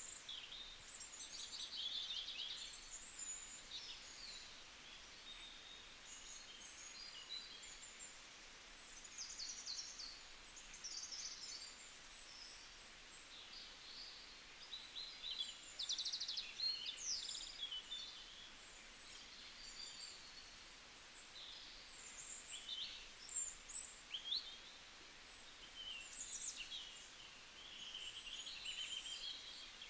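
Several small songbirds chirping and trilling, many short high calls overlapping, over a faint steady background hiss.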